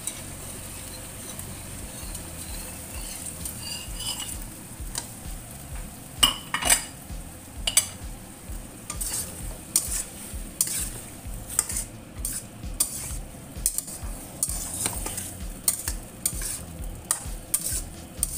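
Shrimp and vegetable stir-fry sizzling in a stainless steel wok as cornstarch is stirred into the sauce. It sizzles steadily at first; from about six seconds in, a metal spatula scrapes and knocks against the wok roughly once or twice a second.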